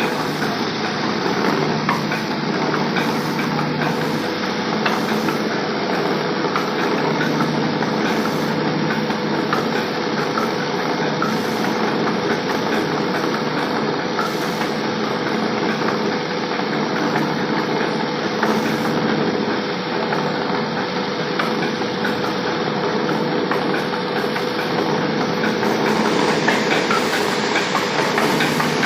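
Village grain and spice mill machinery running steadily under an electric motor: a dense, even rattling noise with a constant hum.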